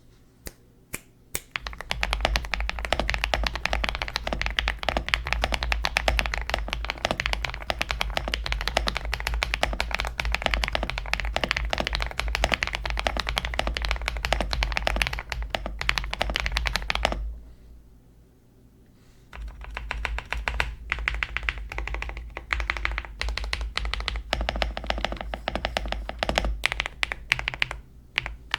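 Typing on a GMK81 mechanical keyboard fitted with KTT HaluHalo V2 switches, hand-lubed with Krytox 205G0 for a creamy sound, and stock stabilizers. A few single keystrokes start it, then rapid continuous typing, a pause of about two seconds past the middle, and rapid typing again.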